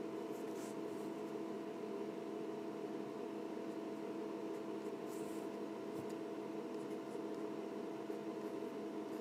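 Ink pen scratching on paper in a few short, faint strokes while inking line art, over a steady background hum.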